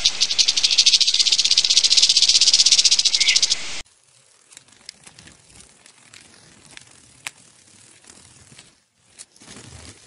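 Rattlesnake rattling its tail: a loud, rapid, even buzz that lasts about four seconds and cuts off suddenly. It is followed by faint background noise with a few soft ticks.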